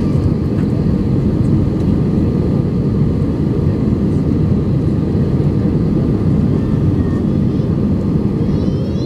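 Steady, loud noise of an Airbus A320 airliner heard inside the passenger cabin: engine and airflow rumble concentrated in the low range, with a faint steady tone above it and no sudden events.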